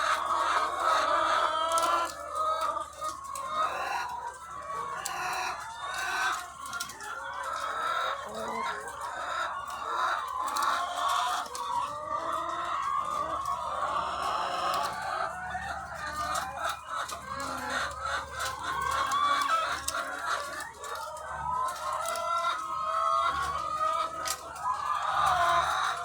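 A large flock of egg-laying hens clucking and calling all at once, a dense unbroken chorus of many overlapping voices.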